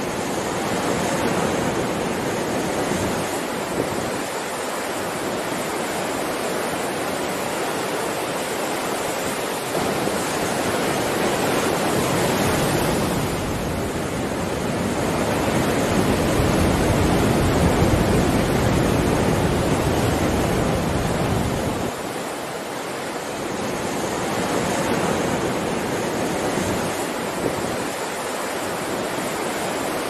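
Sea surf breaking and washing over a rocky shore: a continuous rush of water that swells and ebbs, loudest with a deeper rumble a little past the middle.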